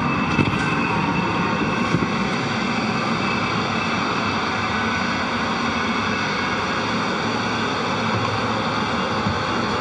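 Steady hum and hiss of the space station's cabin ventilation fans and equipment, with a couple of light knocks in the first two seconds.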